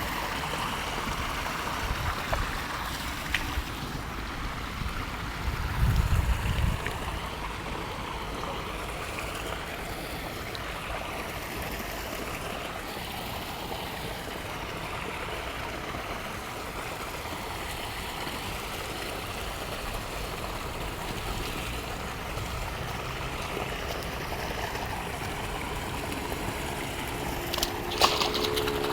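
Steady rush of running stream water. A short burst of low rumble comes about six seconds in, and a sharp click near the end.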